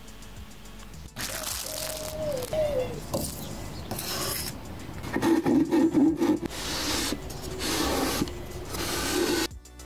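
A wooden board pushed back and forth by hand over sandpaper laid flat, in about six rough rubbing strokes starting about a second in, to straighten the board's top edge.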